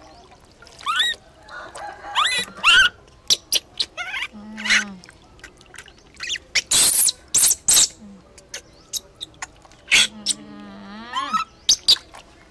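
Baby macaque crying in short, high-pitched squeals that rise in pitch, while bath water splashes and pours in a plastic tub.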